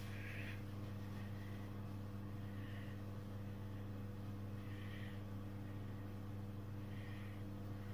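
Steady low electrical hum that does not change, with a few faint, brief soft sounds over it.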